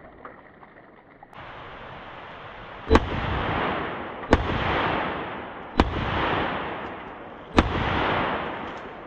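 Four .357 Magnum revolver shots, about a second and a half apart, each followed by a long rolling echo that fades over a second or more.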